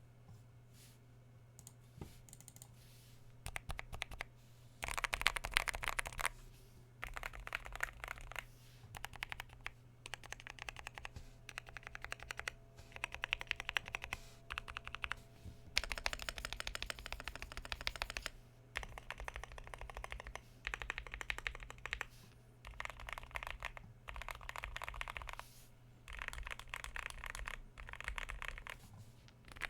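Typing on a Yunzii AL75 mechanical keyboard with Outemu Pink Jade switches and PBT keycaps: fast runs of key clacks in bursts of a second or two, separated by short pauses, with a faint steady hum underneath.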